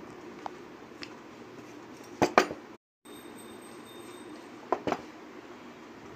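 Wooden rolling pin rolling out a ball of stiff maida dough on a metal plate, clicking and clinking against the plate in pairs of sharp knocks about two seconds in and again near five seconds, with a few fainter ticks between.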